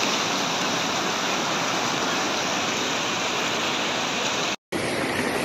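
Muddy floodwater of the swollen Nyando River rushing across and past a road bridge: a steady, even rush of water that breaks off for an instant near the end.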